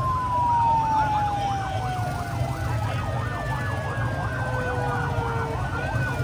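Vehicle sirens: one warbles rapidly up and down several times a second, while a second tone slides slowly down in pitch, over a steady low rumble of engines.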